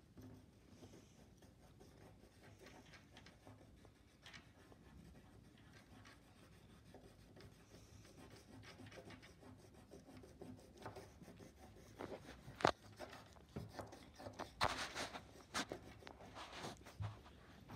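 Crayon rubbing back and forth on paper as a drawing is coloured in: a faint, scratchy sound that grows louder in the second half, with a sharp tap and a few heavier scratches.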